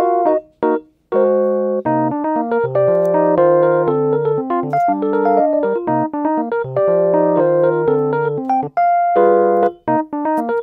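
Background music: a gentle keyboard tune of piano-like notes and chords over a bass line, with a brief pause about a second in.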